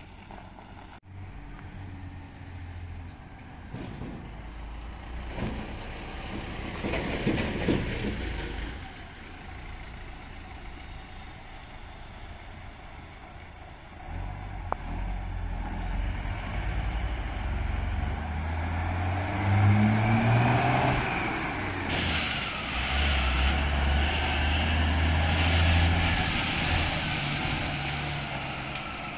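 Heavy diesel trucks, a fire engine among them, driving past and accelerating through a junction, with a car passing near the start. The engine noise grows loudest in the last third.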